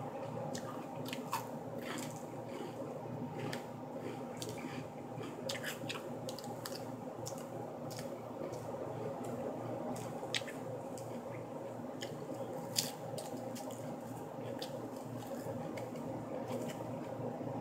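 A person chewing and biting into lettuce salad, with many small crunching and wet clicking mouth sounds throughout. A few sharper clicks stand out, one near the start and two more past the middle.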